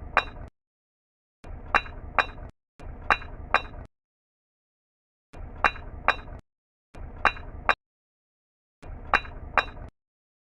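Falling bricks sound effect: a short rattle with two sharp clinks of brick striking brick about half a second apart, played again and again with dead silence between each playing.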